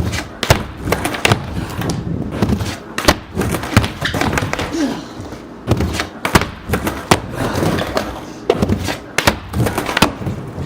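Skateboard riding and trick attempts: wheels rolling on a ramp with a series of sharp clacks and thuds as the board pops and lands.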